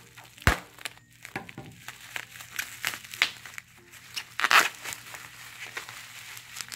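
Bubble wrap and plastic packaging crinkling and crackling as it is cut with scissors and pulled open by hand, with a sharp snap about half a second in and the loudest burst of crinkling about four and a half seconds in.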